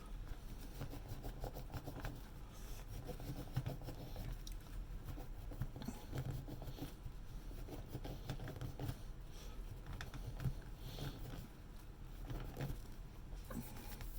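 Scotch-Brite pad scrubbing an espresso machine's boiler cap by hand, an irregular run of small scratchy rubbing and scraping noises with light handling ticks, as the cap is polished clean of dirt.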